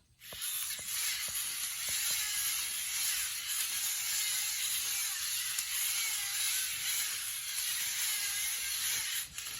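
Lego Mindstorms Alpha Rex walking robot's servo motors and plastic gear trains whirring steadily as it walks, with small clicks from the gears and legs. The sound stops shortly before the end.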